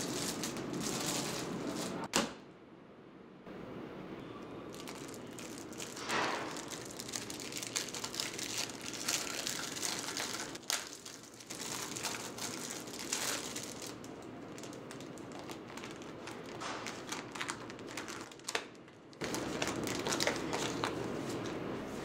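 A plastic-wrapped paper packet being unwrapped by hand: the wrapper crinkles and tears, with rustling and a few sharp clicks.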